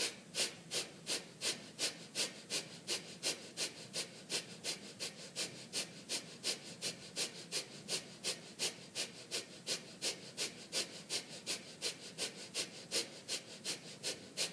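Kapalabhati breathing: a long, even run of short, forceful exhalations through the nose, about three a second.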